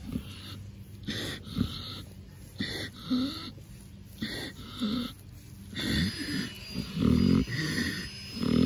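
Pet pig snoring and wheezing as it falls asleep under scratching: short breaths at first, then longer, louder snores in the last few seconds.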